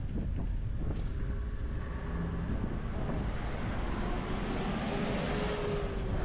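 Road and engine noise from travelling in city traffic, with wind on the microphone. A faint engine note rises and a hiss like passing tyres swells in the second half.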